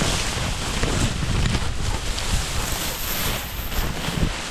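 Dry grass and reed stems rustling and brushing against a camera carried on a dog's back as she pushes through cover, with low rumbling wind noise on the microphone.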